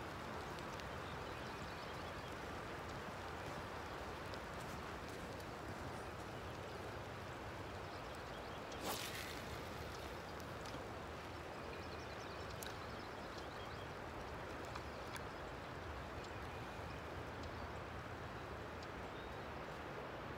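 Steady outdoor ambience by a creek: an even rushing hiss with scattered faint ticks, and one sharper click about nine seconds in.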